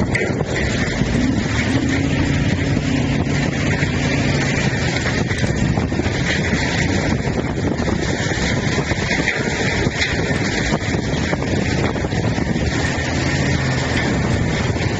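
Tub grinder running steadily as it grinds stumps and tree roots: a constant loud machine noise with a low engine hum that strengthens and fades.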